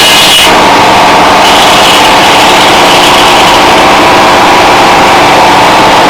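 Detroit Diesel engine driving a sawmill, running steadily between cuts. The high whine of the saw cutting wood stops about half a second in.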